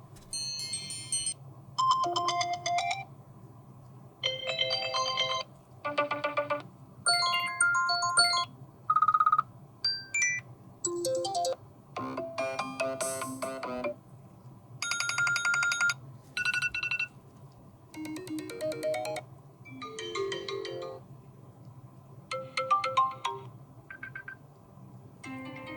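iPhone SE (2022) ringtones played one after another: about fifteen short melodic snippets, each one to two seconds long, with brief gaps between, over a faint steady low hum.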